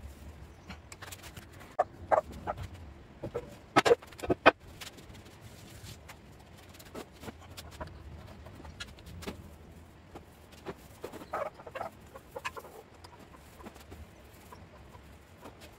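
A paintbrush and tin working over steel plates on a tile floor: scattered light knocks and scrapes, the loudest pair about four seconds in, with short clucking calls between them.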